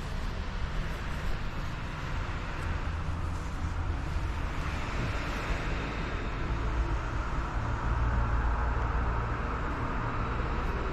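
Steady rumble and hiss of background noise, unchanging throughout, with no distinct events.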